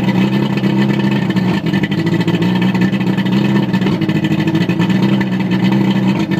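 1998 Johnson outboard motor running steadily after warming up, with an uneven note that the owner takes for a miss and wonders whether it is sneezing.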